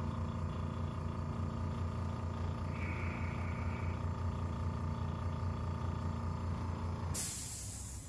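Steady mechanical hum, with a brief higher whine about three seconds in, cutting off abruptly near the end and leaving a soft hiss. No joint cracks are heard.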